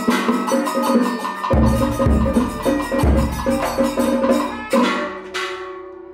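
Percussion music: fast, steady wood-block clacking over deep drum beats. About five seconds in, a gong is struck and rings out, slowly fading.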